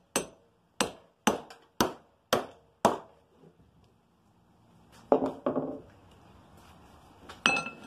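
Six sharp hammer blows, about two a second, on the old wooden handle stub of a sledge hammer head held in a vise, driving out a handle that is stuck fast. A couple of softer knocks follow, and near the end there is a single metallic clink that rings briefly.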